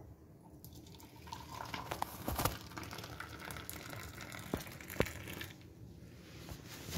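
Freshly boiled milk being poured from a pan into a ceramic mug: a steady pouring splash, with a few sharp clinks along the way.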